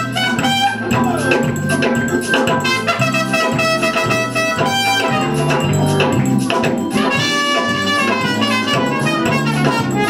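Trumpet playing a jazzy melody line over a live band with electric guitar and drums.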